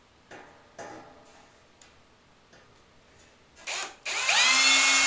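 Cordless drill driving a self-tapping hex-head screw into 18-gauge galvanized sheet steel. After a few faint clicks as the screw is set against the metal, the drill gives a short burst and then, about four seconds in, starts a loud, steady whine that climbs briefly in pitch and then holds.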